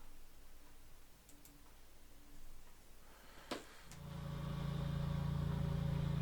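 Room quiet, then a single sharp click about three and a half seconds in, followed by a steady low droning hum that fades in and holds at the start of the played-back video's audio.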